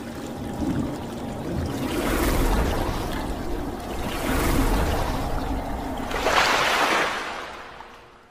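Splashing, rushing water sound effect that swells three times and fades out near the end.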